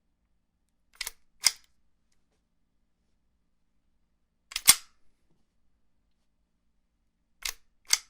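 Bolt-action rifle bolt being worked, three times: each cycle is a pair of sharp metallic clacks about half a second apart, the bolt drawn back and then pushed home. The cycles come about three seconds apart, and the middle one is the loudest.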